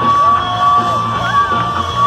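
Live band music played loud through a PA, with a steady beat and a long held high note, and a crowd cheering and whooping over it.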